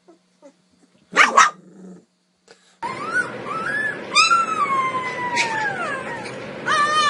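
A puppy gives a short sharp yelp about a second in. Then, from about three seconds in, a husky puppy howls in long calls that slide down and back up in pitch, several in a row, over a steady hiss.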